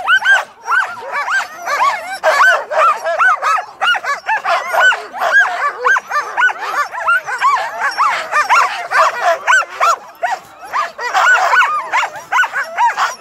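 Many harnessed sled dogs barking and yipping excitedly at once, a dense overlapping din of short high calls: the eager clamour of teams impatient to run at a race start.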